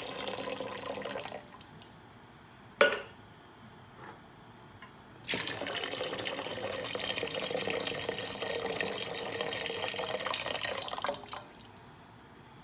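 Liquid poured in a stream into a partly filled cooking pot, splashing, for about a second and a half. A single sharp knock comes about three seconds in. A second, longer pour of about six seconds follows and stops near the end.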